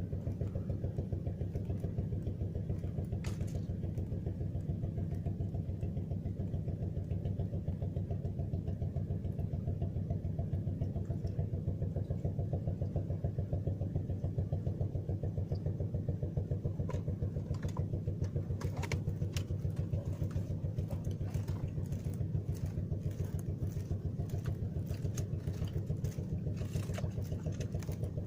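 A motor engine running steadily with a fast, even chug, its sound mostly low-pitched. Scattered light clicks join it in the second half, and the engine sound drops away at the very end.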